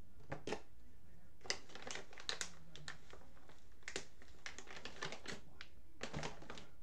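Computer keyboard keys clicking in short, irregular runs of typing.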